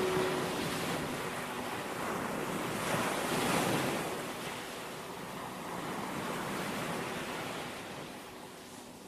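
Ocean surf: waves washing in and drawing back, swelling about three seconds in and again a few seconds later, then fading away near the end.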